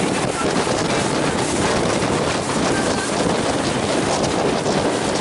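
Wind buffeting the microphone over the steady rush of water past the hull of a boat under way.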